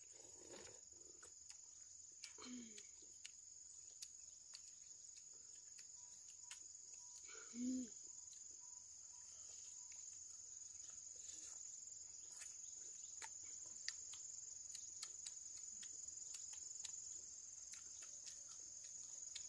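Steady high-pitched insect chorus, crickets or cicadas, with scattered faint clicks. A brief, louder vocal sound comes about eight seconds in, and a fainter one at about two and a half seconds.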